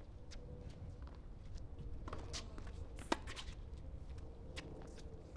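Tennis ball and racket on a hard court: a few faint taps as the ball is bounced before the serve, then one sharp racket strike on the serve about three seconds in, over a steady low arena hum.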